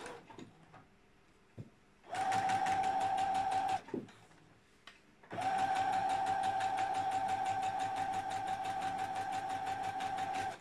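Domestic electric sewing machine stitching a dart: a short burst of stitching that secures the start of the seam, a pause, then a longer steady run that stops near the end. The machine gives a steady hum with a fast, even stitching rhythm.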